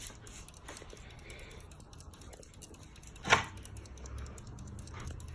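Several small clicks and one sharp click a little over three seconds in, typical of a ceiling fan's pull-chain switch being worked, over a faint low hum of the Casablanca Verde Nouvelle ceiling fan's motor running on low speed.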